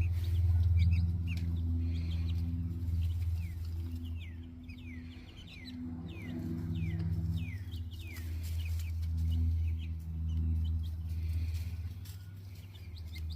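Young chicks peeping over and over, short high peeps that slide downward in pitch, with a loud, steady low hum underneath.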